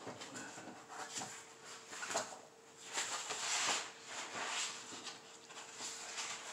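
Paper sheets and file folders rustling as they are leafed through by hand: a string of papery swishes, the longest and loudest a little after three seconds in.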